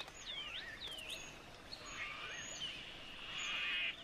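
Birds calling: a quick run of short whistled notes sliding downward in pitch, then from about halfway a buzzy trill that grows louder and cuts off abruptly near the end.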